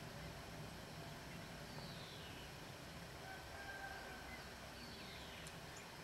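Faint songbird calls over a steady low background noise: two short whistles falling in pitch and, between them, one held even whistle.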